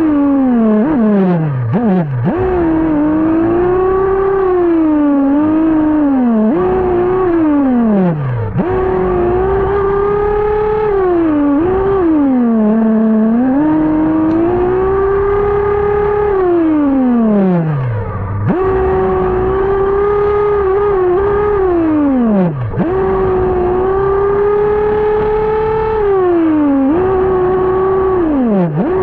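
Losi nitro RC buggy's two-stroke glow engine heard from on board, revving high and steady, then dropping steeply in pitch off the throttle and climbing back up as it accelerates again, over and over through the laps. The engine is still on its rich break-in tuning, not yet leaned out much.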